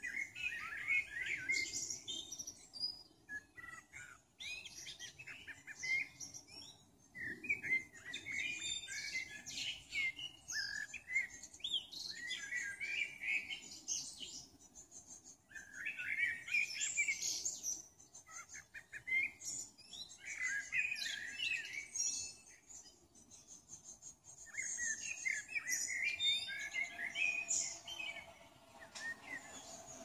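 Several songbirds singing at once, overlapping quick chirping and warbling phrases with short lulls between bursts.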